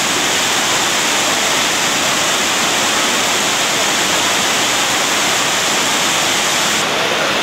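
Water pouring in thin sheets over a tall stone cascade wall and splashing into the channel below: a steady, even rush.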